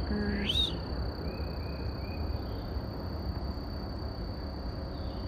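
Outdoor summer garden ambience: a steady high insect drone, a bird's short call that rises and falls about half a second in, a few faint chirps after it, and a low rumble underneath.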